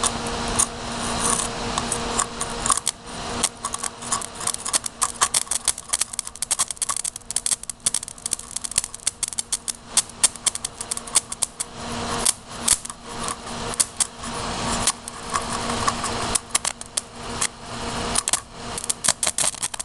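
Electric arc from a 13.8-volt power supply crackling and popping irregularly as a live wire is held against a motherboard's northbridge chip, burning into it. A faint steady low hum runs underneath.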